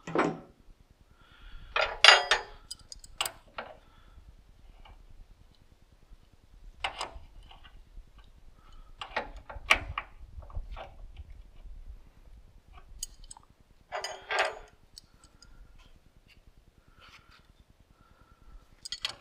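Metal hydraulic hose fittings and hand tools being handled: scattered clinks, clicks and short rattles at irregular intervals, loudest about two seconds in and again near fourteen seconds.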